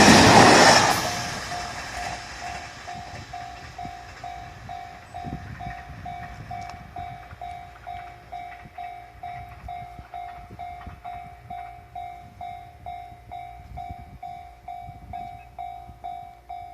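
Loud train noise at a Japanese railway level crossing cuts off about a second in, leaving the crossing's warning bell ringing steadily at about two strikes a second over a faint low rumble.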